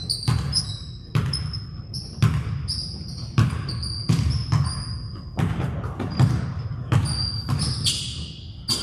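Basketball bouncing on a hardwood gym floor, a bit more than one bounce a second in an uneven rhythm, with short high squeaks between the bounces.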